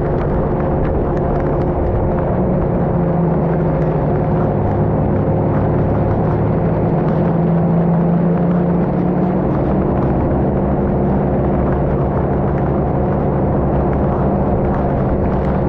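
A moving car's engine and road noise, a steady hum whose low tones shift slightly about halfway through, with faint scattered ticks of rain.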